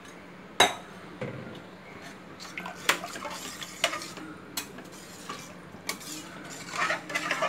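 Metal ladle stirring a thin liquid masala in a metal pressure-cooker pot, with scattered clinks and scrapes against the pot. The sharpest clink comes about half a second in and a quick cluster near the end. Water and milk are being mixed into the tomato base for tomato rice.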